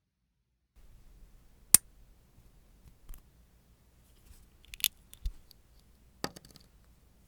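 Sharp snips of a small nail-care cutting tool, heard as single crisp clicks: a loud one about two seconds in, more near five and six seconds, with a dull knock in between.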